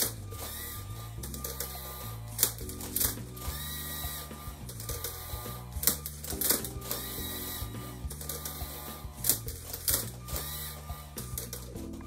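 LEGO SPIKE Prime motors whirring in short rising-and-falling whines and plastic parts clacking irregularly as the robot turns layers of a Rubik's cube and flips it while solving. Background music runs underneath.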